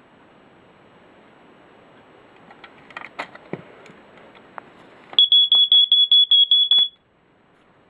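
First Alert SA90LT smoke detector's piezo horn going off in a test: a shrill, rapidly pulsing beep, about six pulses a second, for under two seconds, then it cuts off abruptly. A few light clicks and knocks come just before it.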